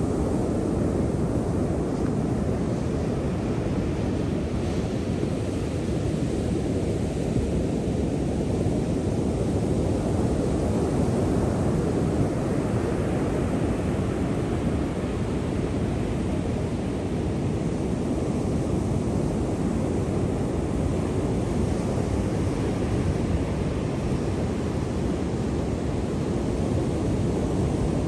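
Ocean surf: a steady low rumble of waves breaking and washing in, with slow swells in the hiss.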